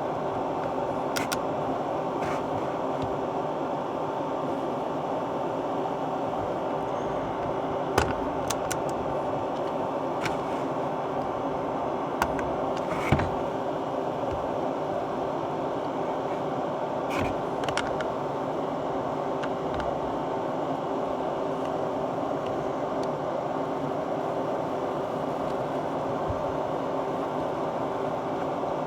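A steady whirring hum with two faint even tones in it, like a fan or heater running, broken by scattered light clicks and a few sharper knocks, the loudest about thirteen seconds in.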